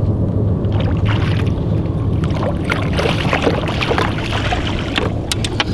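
A boat motor running steadily under a wash of wind and water, with scattered light knocks in the second half.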